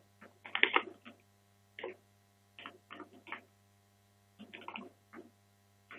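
Steady low electrical hum, with short, irregular crinkles of a clear plastic bag being handled. The loudest crinkles come about half a second to a second in.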